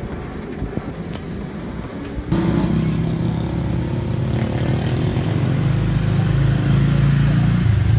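Motorcycle tricycle engine running, heard from the sidecar. A little over two seconds in, the sound cuts abruptly to a louder, steady low engine drone.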